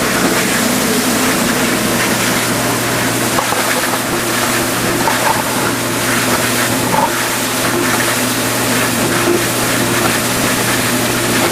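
Vintage KitchenAid Supurba dishwasher running its wash cycle: a steady motor-and-pump hum under the rushing, splashing noise of water being sprayed inside the tub.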